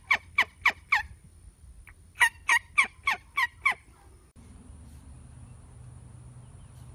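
Wild turkeys calling in two runs of sharp, quick, falling notes, about three a second. The first run ends about a second in, and the second runs from about two seconds to nearly four. Then the calls stop, leaving a faint low hum.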